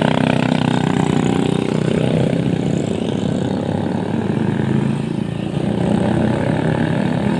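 Heavy road vehicle's engine running loudly, its pitch rising over the first couple of seconds before settling into a steady drone.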